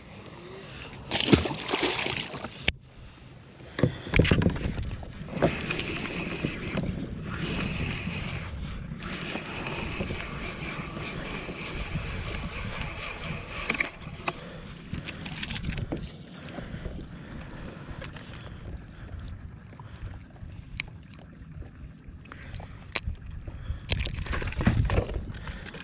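Water sloshing against a fishing kayak, with occasional knocks and handling noise on the hull and gear, and a louder noisy stretch a few times.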